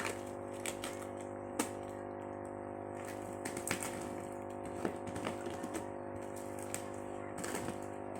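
Scattered light clicks and taps from a package of plastic oil bottles being handled and unpacked, over a steady background hum.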